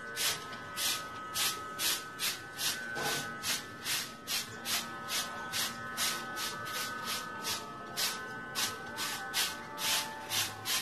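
Broom sweeping dry leaves off the ground in steady, even strokes, about two a second.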